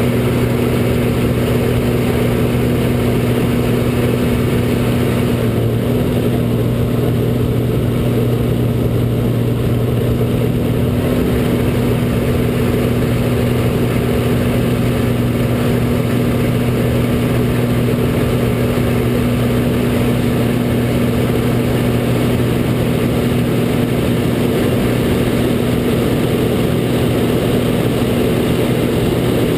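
Extra 300's six-cylinder Lycoming engine and propeller running steadily in flight, a constant low drone heard from inside the cockpit canopy along with rushing air.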